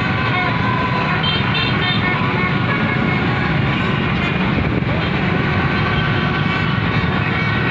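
Street celebration crowd: a dense mass of vehicles running with horns tooting, mixed with people shouting and cheering. The din is loud and unbroken.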